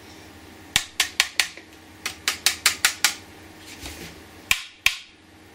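A hand tapping sharply on a hard surface: four quick taps about a second in, a faster run of six or seven around two to three seconds in, and two more near the end.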